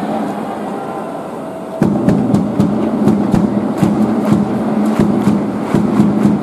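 Organized stadium cheering at a baseball game: a held musical note over a fast, regular beat of claps or drumbeats, about four a second, that starts loudly about two seconds in over the crowd noise.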